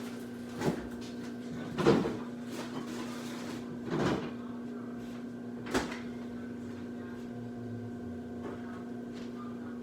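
Four short knocks and clunks of kitchen handling, spread over the first six seconds, the second the loudest, over a steady low hum.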